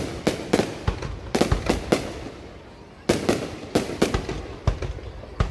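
Fireworks bursting: irregular sharp bangs, sometimes several a second, each with a short echoing tail, with a brief lull about halfway through.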